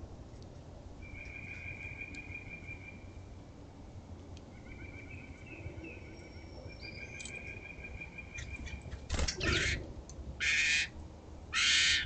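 A songbird singing a rapid, even trill three times, followed by three short, loud bursts of wing fluttering from small birds at a seed feeder near the end.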